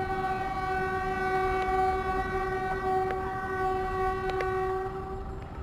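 Horn of a departing Philippine National Railways train held in one long steady blast, cutting off about five seconds in. A few sharp clicks sound under it.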